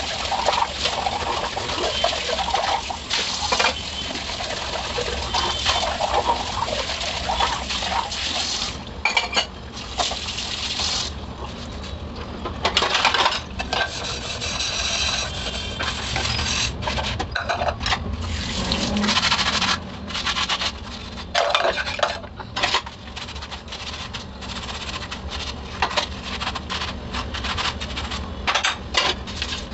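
Stainless-steel dishes and utensils clinking and knocking together in a full sink while being washed by hand, with tap water running and a soapy scrubber rubbing. Water runs steadily for the first several seconds, then many sharp metallic clinks break in.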